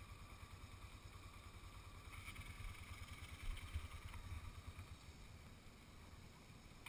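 ATV engine running at low revs, heard faintly as a steady low rumble, a little louder around the middle with two short knocks.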